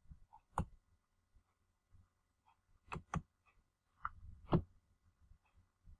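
Faint computer mouse clicks, a few spaced apart, with a quick pair about halfway through, as pages are navigated.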